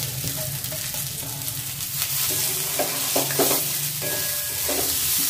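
Rice, vegetables and nuts sizzling in ghee and oil in a steel kadai, with a metal spatula scraping and stirring against the pan in a run of strokes from about halfway through.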